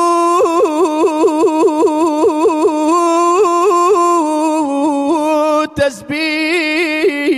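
Solo male voice singing a long melismatic line into a microphone in a Kurdish devotional praise song: a held note, then a run of quick vocal trills at about five a second, then more held notes. There is a short breath about six seconds in.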